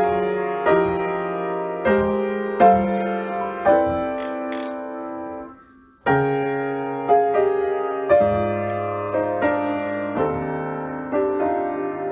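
Upright piano played solo: sustained chords struck roughly once a second, dying away to near silence about halfway through, then starting again with a new phrase.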